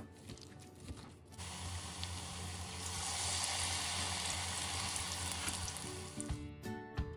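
Battered vegetable fritters (julienned sweet potato, carrot, onion and perilla leaf) sizzling in hot deep-frying oil. The sizzle starts about a second and a half in, grows to its loudest midway and dies away near the end as guitar music comes in.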